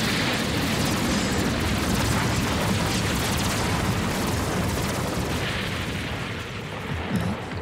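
Cartoon explosion sound effect: a long, noisy rumble after the blast that fades away over the last couple of seconds.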